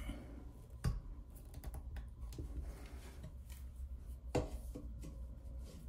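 A screwdriver tightening a toilet seat's hinge screws into plastic nuts, making faint small clicks and scrapes, with a sharper click about a second in and another a little past four seconds.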